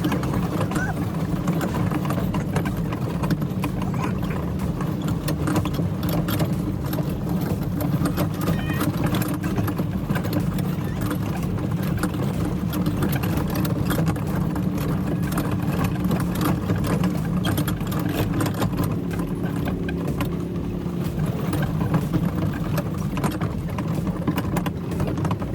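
A motor vehicle's engine running steadily, with a continuous rattling clatter over the drone and voices in the background.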